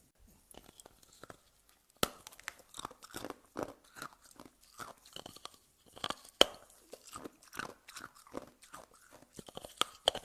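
Frozen ice being bitten and chewed. A sharp crack comes about two seconds in, and the loudest one comes past six seconds, with irregular crunching chews in between.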